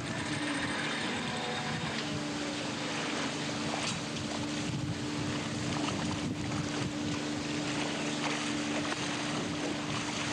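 Fishing boat's engine running with a steady hum, over the rush of sea water along the hull and wind buffeting the microphone.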